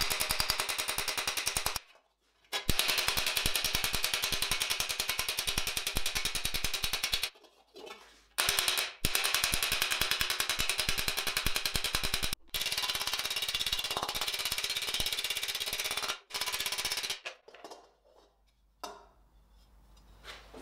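A small steel hammer rapidly planishing a thin stainless-steel breastplate over a steel stake, with many quick, even metallic blows a second. The blows come in runs of a few seconds with short pauses and stop a few seconds before the end.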